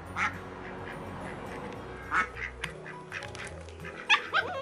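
A Yorkshire terrier giving a few short barks while it plays with a football, over quiet background music.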